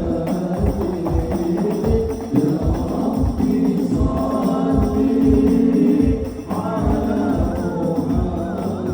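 Sholawat devotional song: voices singing a drawn-out melodic line over a steady beat of hand-struck frame drums with jingles.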